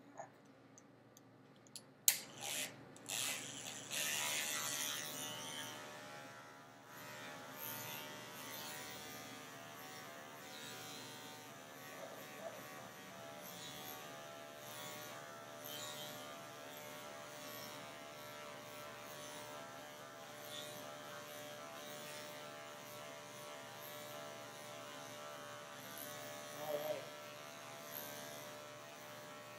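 Electric dog grooming clippers fitted with a #10 blade: a few clicks about two seconds in, then the motor runs with a steady hum as the blade shaves through a pelt-matted coat.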